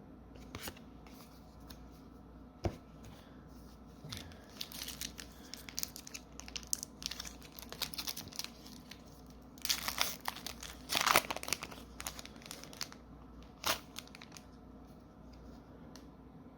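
Foil booster-pack wrapper being torn open and crinkled by hand, in irregular crackling bursts that are loudest about ten to eleven seconds in, with a few separate clicks.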